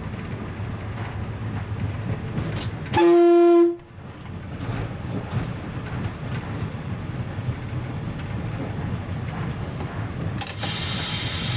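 DR 'Ferkeltaxe' diesel railbus running along a branch line, a steady rumble of engine and wheels on the rails, with one short horn blast of under a second about three seconds in. Near the end a higher hissing noise joins the rumble.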